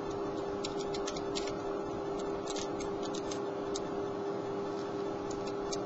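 Metal lock pick raked back and forth, in and out, across the pins of a pin-tumbler house lock, giving irregular light clicks.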